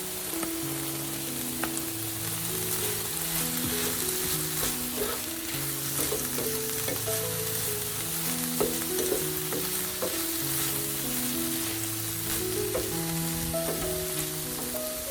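Food sizzling as it fries in a pan, with a few light clicks of a utensil stirring, over soft background music of held notes.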